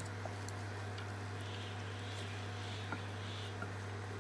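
Faint soft ticks and scrapes of a wooden spatula stirring a wet mixture in an aluminium pressure cooker, over a steady low hum.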